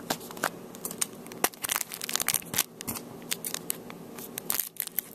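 Crinkling and tearing of a trading-card pack wrapper being opened by hand: a steady run of irregular sharp crackles.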